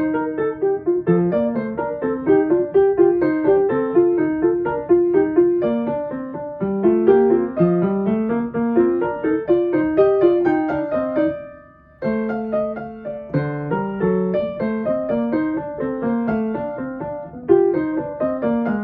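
Piano playing a quick piece of running notes over a moving bass line. The sound fades out briefly about eleven seconds in, then resumes.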